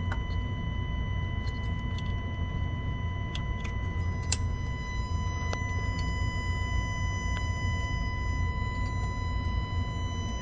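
Alfa Romeo Giulia 2.0 turbo's EGR valve solenoid whining steadily and high-pitched after engine shutdown, over a low rumble with a few light clicks. The EGR stays running after the engine is shut off, and this whine is often mistaken for the coolant pump.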